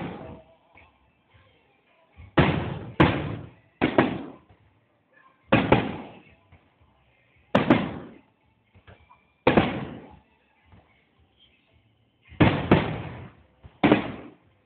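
Fireworks bursting: about ten separate loud bangs at irregular intervals of one to two seconds, each fading away over about half a second.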